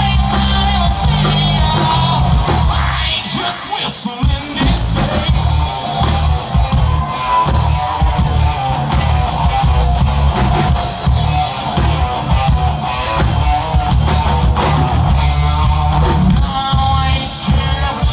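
Live country-rock band playing hard and heavy: electric guitars, bass and drums, with a man singing. The bass and drums drop out briefly about four seconds in.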